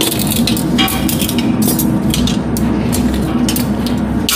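Busy restaurant kitchen: a steady low drone of kitchen equipment with repeated short metallic clinks and clatter.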